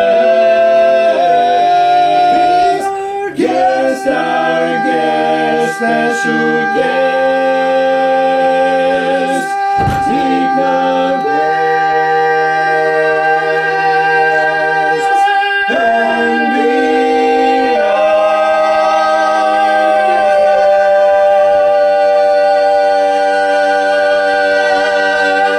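Male barbershop quartet singing a cappella, holding long sustained chords that change every second or few. The song ends on one chord held for about eight seconds that stops at the very end.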